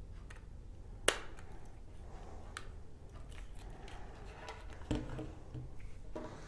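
Handling noise from a plastic thermostat being wired and turned over by hand: a sharp click about a second in, then scattered small clicks and knocks, with a louder knock about five seconds in as it is set down on the wooden table.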